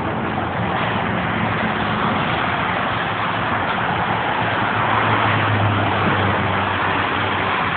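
Steady roar of freeway traffic, the tyre and engine noise of cars passing at speed close by. A low engine hum swells briefly about five seconds in as a vehicle goes past.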